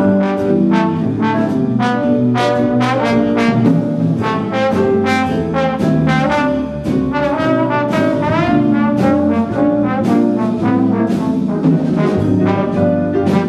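A jazz big band plays a blues. A trombone solos over the rhythm section, and the cymbals and drums keep a steady beat under it.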